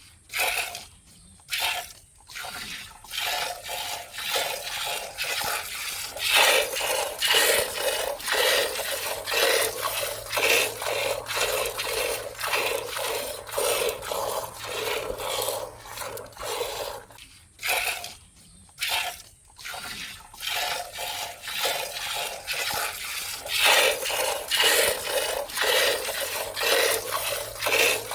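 A cow being milked by hand: rhythmic squirts of milk hitting a pail, a steady run of quick strokes broken by two short pauses, about a second in and again a little past the middle.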